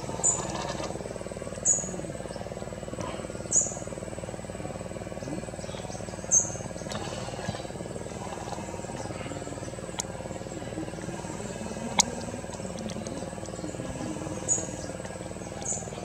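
Forest ambience: a steady high insect whine with short, high falling chirps every couple of seconds, and two sharp clicks about two seconds apart past the middle.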